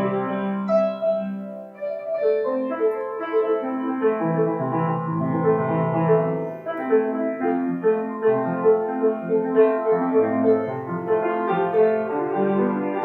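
Piano music: a calm piece with held bass notes under a melody, and a run of short repeated notes in the middle range through the second half.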